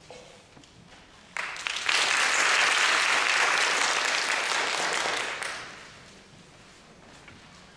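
Audience applauding: the clapping starts suddenly about a second and a half in, holds steady for about four seconds, then dies away.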